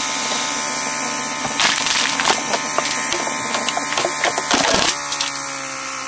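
The electric central-locking pressure pump from a 1994 Mercedes S600 coupe runs on the bench with a steady buzz, pumping up its pressure reservoir. Its tone shifts slightly about five seconds in.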